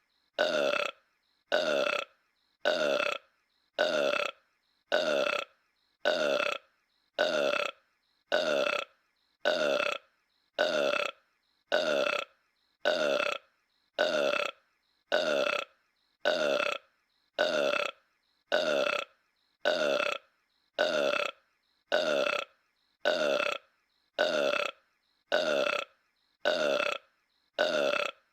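A cartoon giant ape's voiced burp, the same short burp looped over and over, about one a second, with silence between each.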